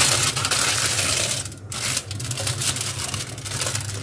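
Aluminium foil crinkling and crackling as hands fold it into a packet, quick irregular crackles with a short pause about one and a half seconds in, over a steady low hum.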